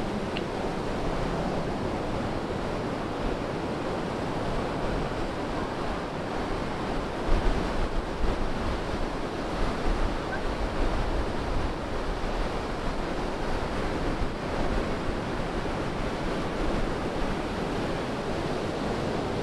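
Ocean surf breaking and washing up a sandy beach in a steady rush. Wind gusts buffet the microphone a few times in the middle.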